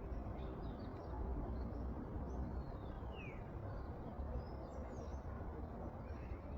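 Outdoor ambience: small birds chirping sporadically, one with a call that slides downward about three seconds in, over a steady low rumble.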